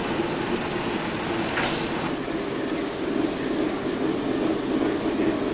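Steam locomotive (a BR Standard Class 2 2-6-0 fitted with a Giesl ejector) running with a steady rumble, hiss and hum. A brief sharp hiss comes about one and a half seconds in.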